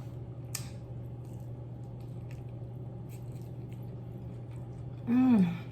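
Close-miked chewing of a bite of crab meat, with soft wet mouth clicks and smacks, one sharper click about half a second in. Near the end comes a short, loud "mmm" of enjoyment whose pitch rises and then falls.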